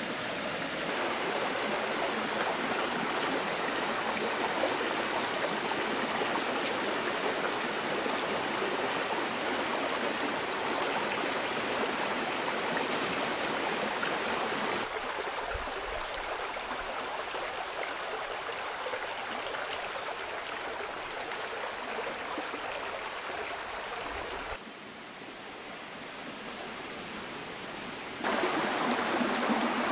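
Small stream flowing: a steady rush of running water whose level shifts abruptly a few times, dropping about two-thirds of the way in and jumping back up near the end.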